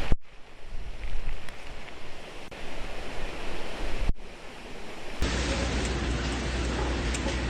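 Typhoon wind and heavy rain, a loud noise of gusts that swell and drop, with wind buffeting the microphone. About five seconds in it gives way to a steadier wind-and-rain noise with a low hum underneath.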